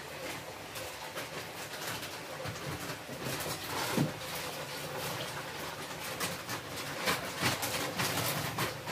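Broth simmering in a wok: a steady hiss with scattered small bubbling pops that grow more frequent after about three seconds. There is one louder knock about four seconds in.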